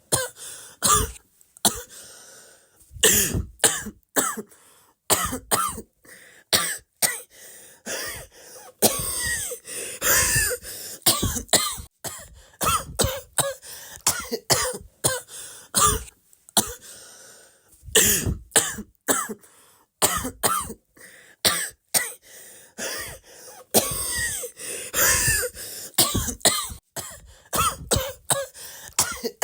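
A person coughing again and again in quick runs of short, sharp coughs, some with a hoarse voiced edge, with brief pauses between the fits.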